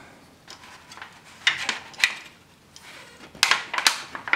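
Fingers pressing on a thin aluminium foil pie dish, making scattered sharp crinkles and taps: a few around the middle and a quick cluster near the end.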